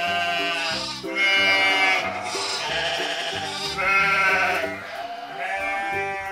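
Sheep bleating again and again, a long wavering bleat about every one to one and a half seconds, over light background music.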